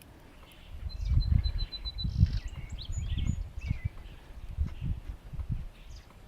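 Outdoor birds chirping, with a short rapid trill about a second in, over irregular low rumbling gusts of wind on the microphone.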